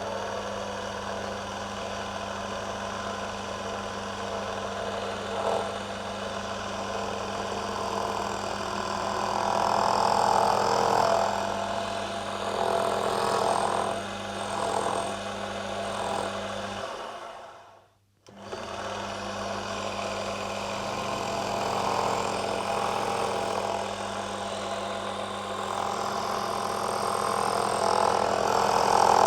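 Small electric bench lathe running with a steady motor hum while the tool cuts brass, the cutting noise swelling and fading unevenly. The sound cuts out for about a second two-thirds of the way through, then resumes.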